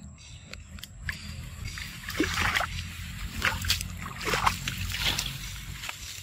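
Water splashing and sloshing in irregular bursts as macaques wade through a shallow pool, over a steady low hum.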